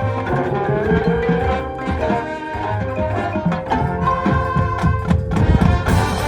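Marching band music: held brass notes over a steady low bass pattern and drum strokes, with one held note sliding upward near the start.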